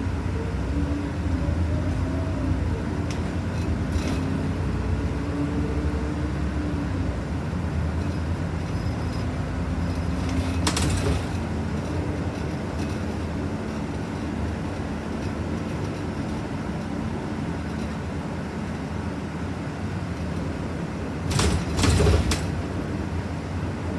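Okaden city bus no. 572 running: a steady engine and road rumble with a faint whine that rises and falls over the first several seconds. A short knock sounds about halfway through, and a louder clatter of knocks comes near the end.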